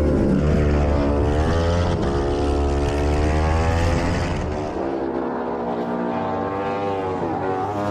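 Racing motorcycle engine at high revs, recorded on board, climbing in pitch through the gears with a sharp drop for an upshift a little past halfway and another near the end, over a steady rush of wind.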